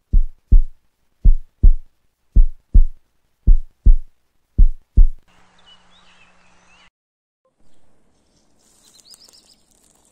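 Heartbeat sound effect: five deep double thumps (lub-dub), about one pair a second, ending about five seconds in. Then faint hiss with a few high chirps.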